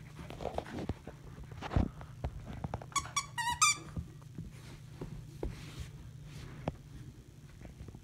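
Rottweiler puppy playing with a toy on carpet: scuffles and knocks, with a quick run of short high squeaks about three seconds in.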